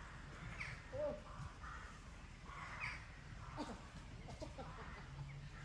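Crows cawing several times, each call about half a second long.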